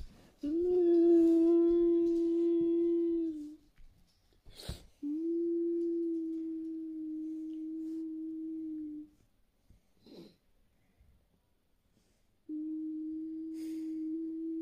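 A man fake-crying with three long, steady, held whimpering moans, the first the loudest, each sagging slightly in pitch as it ends. Brief rustles between them.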